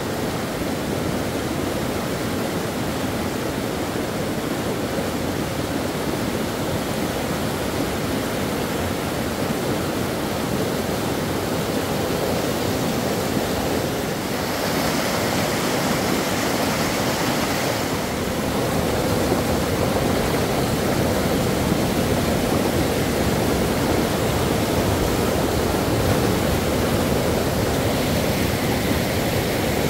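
Steady, loud rushing of water. It hisses brighter for a few seconds about halfway through and runs a little louder after that.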